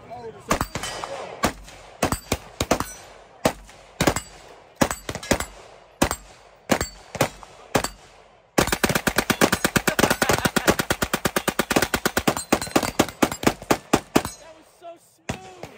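Gunfire: single shots at uneven intervals for about the first half, then a machine gun firing one long, rapid full-auto burst of about six seconds that starts suddenly, followed by a few more scattered shots.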